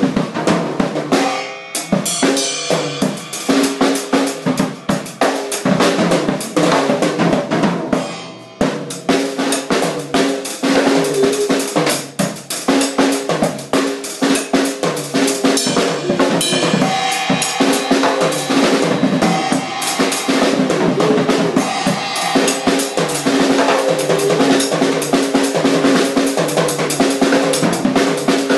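Drum kit without a bass drum played along to a recorded music track: fast, dense drum hits over the song's steady tones, with a brief dip about eight seconds in.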